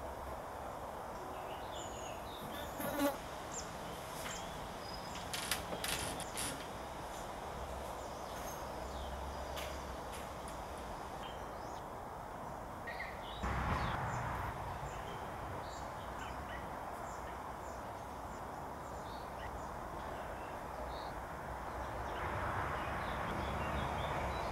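Outdoor garden ambience: insects buzzing over a steady background hiss and low rumble, with scattered short high chirps. A few clicks come about three and six seconds in, and a brief louder swell of noise comes about halfway through.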